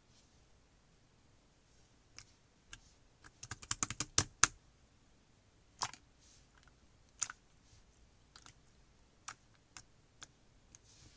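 Slime being pressed and squeezed by hand, giving sharp crackly clicks and pops: a quick run of them about three to four seconds in, then scattered single clicks.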